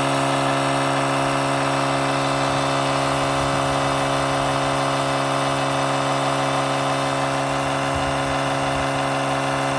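Etenwolf Vortex S6 portable air compressor running steadily as it inflates a car tire: a constant motor hum at one unchanging pitch and level.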